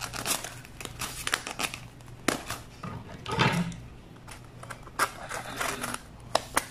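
Hands handling and turning a polystyrene foam shipping box, with a scattered run of small clicks, rubs and rustles from the foam.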